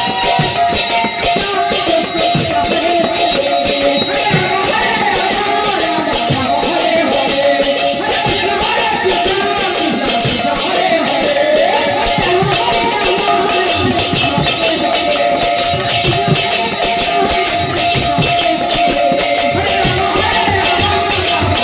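Devotional kirtan music: large brass hand cymbals clashed in a fast, steady rhythm, with a man singing through an amplified microphone over a held drone-like tone.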